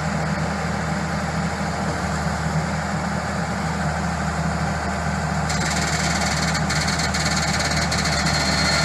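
Excavator's diesel engine running steadily at a low, even speed. About five and a half seconds in, a steady high hiss joins it.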